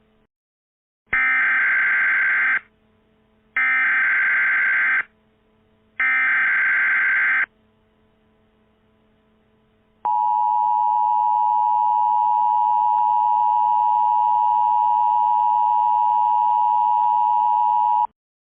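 Emergency Alert System tones: three loud bursts of SAME header data, each about a second and a half of warbling digital noise, followed a couple of seconds later by the steady two-tone EAS attention signal, which holds for about eight seconds and cuts off suddenly. The sequence marks the start of a new alert message.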